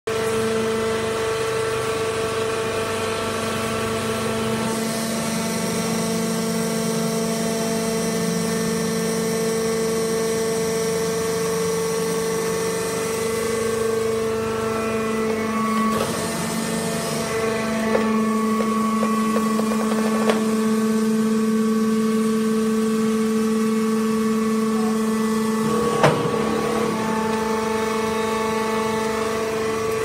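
Hydraulic wood-chip bagging baler running, its electric motor and hydraulic pump giving a steady, loud hum. A higher hiss joins in for several seconds in the first half, and a few sharp knocks come in the second half, the loudest near the end.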